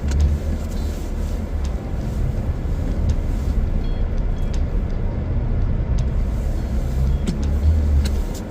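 Car driving along: a steady low engine and road rumble heard from inside the cabin.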